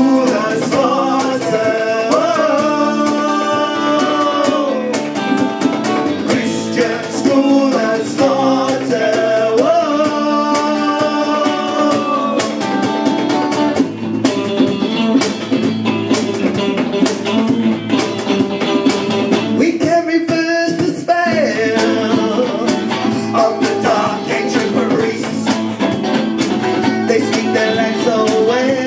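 Live rock band playing: male and female singers over electric guitars, with a steady beat.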